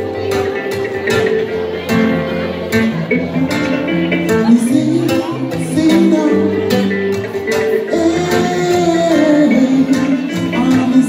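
Live band playing: kora and acoustic and electric guitars plucking a steady rhythmic pattern, with a man singing over it from about four seconds in.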